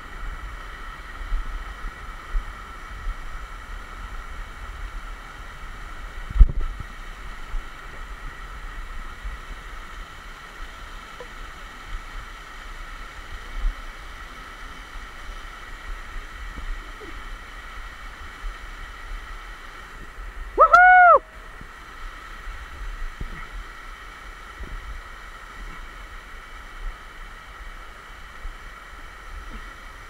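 Waterfall water rushing and splashing over the rock and the rope-descending climber, a steady hiss throughout. A single thump comes about six seconds in, and a short, loud hooting call that rises then falls comes about two-thirds of the way through.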